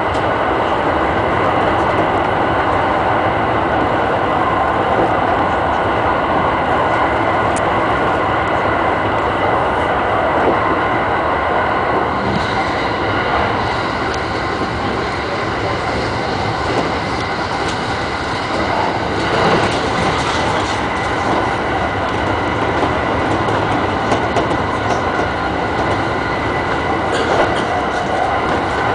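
E217-series electric multiple unit running along the line, heard from inside the front cab: a steady rumble of wheels on rail with a constant hum of high tones above it.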